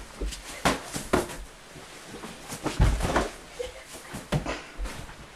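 A scuffle on a mattress: irregular soft thumps and fabric rustling as pillows and stuffed animals are thrown and a person thrashes under them. The loudest thump comes about three seconds in.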